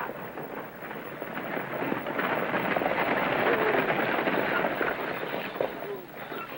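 Horse-drawn stagecoach arriving and pulling up: a rumbling clatter of hooves and wheels that builds about two seconds in and eases off near the end.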